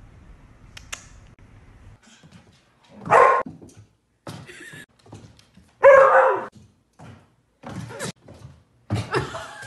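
A dog barks loudly twice, about three seconds apart, each bark about half a second long. Shorter thumps and knocks come between and after.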